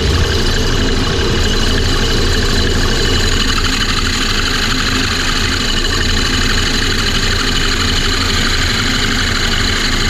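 A half-horsepower Harbor Freight wood lathe and a drill press running together, with a circle hole saw in the drill press pressed down into a spinning 4x4 block to cut a wooden sphere. Steady and loud.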